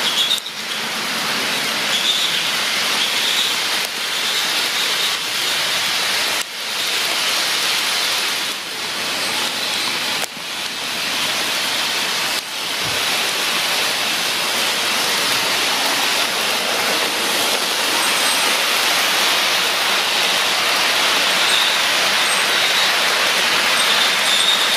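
HO scale model freight trains running on track: a steady rushing rattle of small metal wheels rolling on the rails, with a faint high wheel squeal near the start and again near the end.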